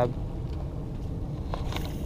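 Steady low rumble of wind buffeting the microphone, with a couple of faint clicks near the end.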